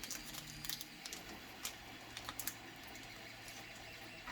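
Light, irregular clicks and rattles of small steel Helicoil inserts and kit parts being handled, over the faint steady hum of a 3D printer running.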